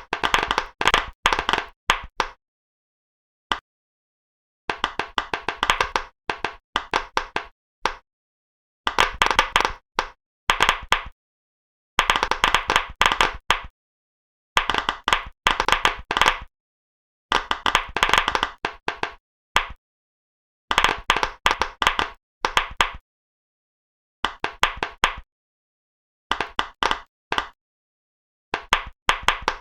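Pop-it fidget toy bubbles being popped: quick runs of sharp clicky pops, each run lasting a second or two, broken by dead-silent gaps.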